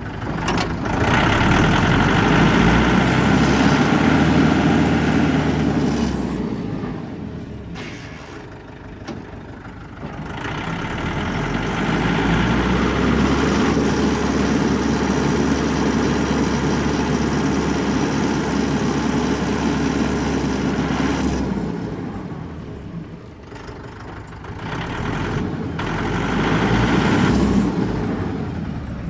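Mahindra 4540 tractor's diesel engine running, its revs rising and falling: three loud stretches of several seconds, with quieter, lower running in between.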